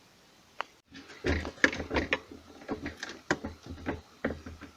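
Irregular plastic clicks and rattles of hands working wiring connectors loose inside a refrigerator's freezer compartment, starting about a second in.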